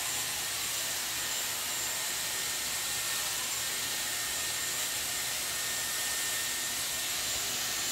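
Corded hot-air brush (a round-brush hair dryer) running steadily: an even rush of blown air with a faint high motor whine.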